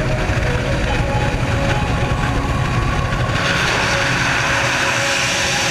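Aircraft engine running steadily, with a rushing hiss joining about three seconds in.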